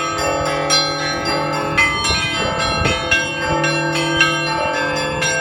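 Russian church bells rung from a belfry: smaller bells struck in quick succession over the long ringing of deeper, larger bells.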